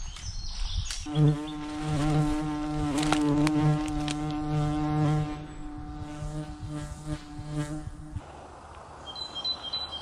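Steady buzzing of a flying insect close to the microphone, lasting about seven seconds and stopping suddenly, with bird chirps just before it starts.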